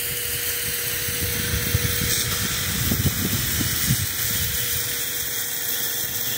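Chinook helicopter running: a steady rushing hiss with one constant whining tone and an uneven low rumble that swells about three seconds in.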